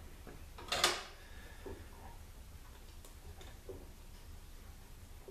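Small metal clicks and clinks from hand tools and parts inside an automatic transmission case as a snap ring is worked loose. One sharp, louder clank comes about a second in, followed by a few faint ticks.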